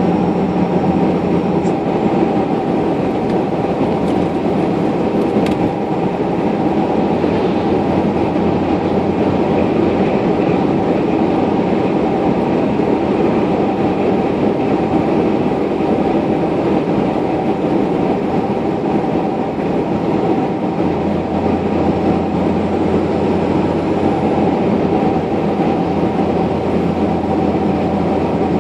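Steady engine and tyre rumble heard inside the cab of a vehicle driving at road speed, with a low drone that grows stronger about three quarters of the way through.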